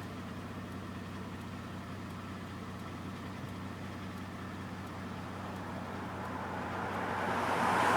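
Steady hum and road noise of a moving car heard from inside the cabin, with a broad rushing noise that swells louder toward the end.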